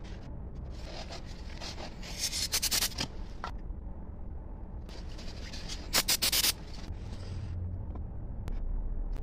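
Wet cement being smoothed by hand in a foam mould: scraping and rubbing, with two louder stretches of harsh scraping about two and six seconds in.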